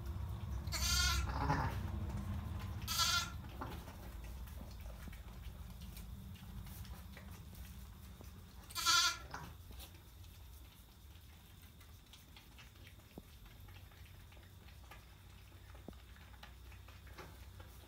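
Sheep bleating: three short, quavering bleats, about a second in, about three seconds in and about nine seconds in.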